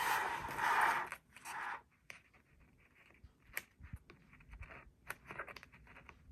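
Paper being trimmed and handled: a continuous scraping rustle for about the first two seconds, then light scattered clicks and short rustles.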